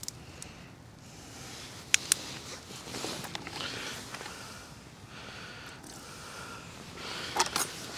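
Handling noises: rustling, two sharp clicks about two seconds in and a cluster of clicks near the end, as a black plastic bucket is picked up and tipped.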